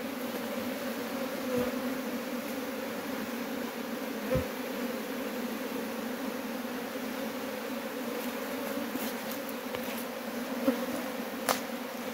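Honeybees humming steadily over an open hive, with a few light knocks.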